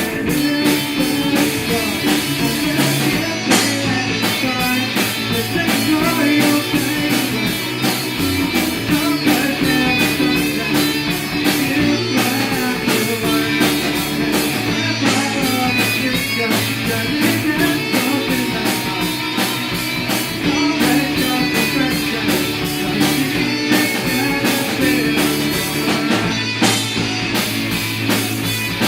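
A band playing a rock song: guitars over a drum kit with a steady beat of cymbal and drum hits.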